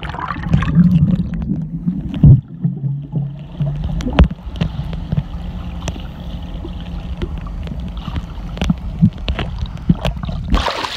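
Muffled underwater sound picked up by a submerged camera as a swimmer dives: a dense low rumble with a steady low hum, broken by several sharp knocks and clicks as he moves, with bubbles rising.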